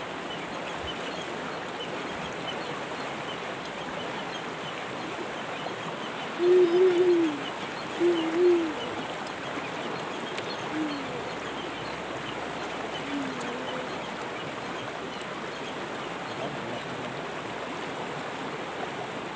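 Steady rush of river water flowing past. Two short pitched voice-like sounds stand out about six and a half and eight seconds in, with two fainter ones a few seconds later.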